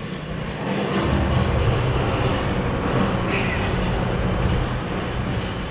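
Steady low rumble of wind buffeting and handling noise on the camera microphone, rising about a second in as the camera is carried out of the cabin.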